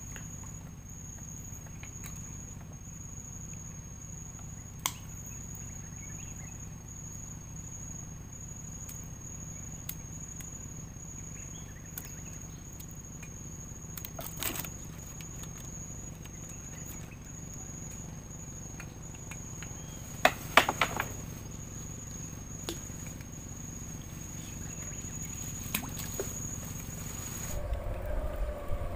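A steady high-pitched insect trill, with a low hum underneath, broken by a few sharp knocks and clicks from the wooden boat and fishing rods, the loudest a cluster about two-thirds of the way through. Near the end the trill stops and wind rumbles on the microphone.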